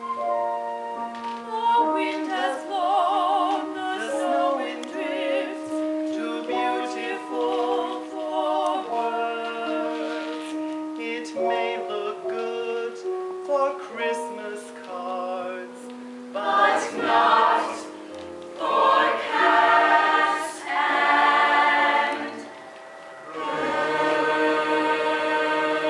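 Stage musical cast singing together in chorus, with long held notes that waver in pitch. Near the end the sound dips briefly, then a long sustained chord follows.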